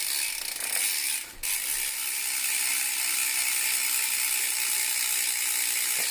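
BMX rear wheel spinning freely, its hub pawls ratcheting in a fast, steady buzz of clicks, with a brief break about a second and a half in.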